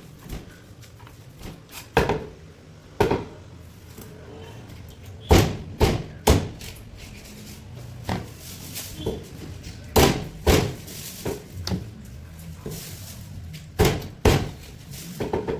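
A heavy knife chopping through a barracuda on a wooden cutting block: a series of sharp, loud chops at irregular intervals, several of them in quick pairs.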